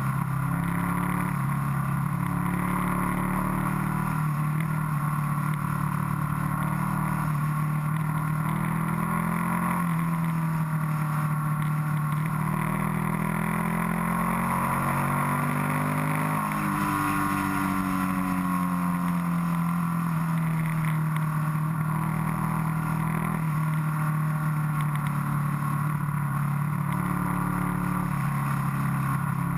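Motorcycle engine heard from on board at riding speed, its pitch falling and rising as the rider eases off and opens the throttle through the bends, with a sudden step in pitch a little past halfway. Steady wind and road noise run under it.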